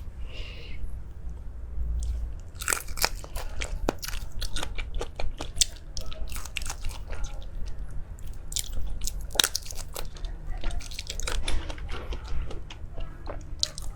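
Crunchy food being bitten and chewed close to the microphone: a quieter start, then a dense run of sharp, crackly crunches from about three seconds in.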